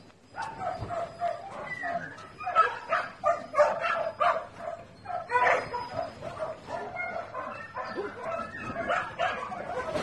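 Dogs barking and yipping over and over in short, high calls, several a second at times.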